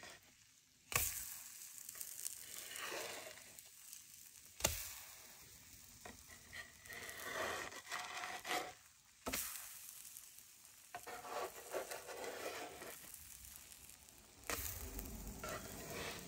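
Pancake batter sizzling on a griddle, with three sudden knocks along the way.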